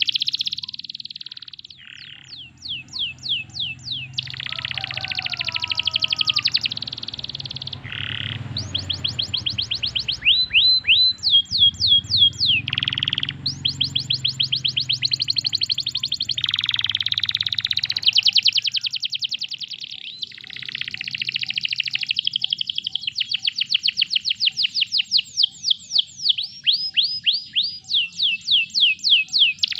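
Domestic canary singing a long song of fast trills: runs of rapid, sharply falling notes repeated several times a second, changing pace from phrase to phrase with brief breaks between runs.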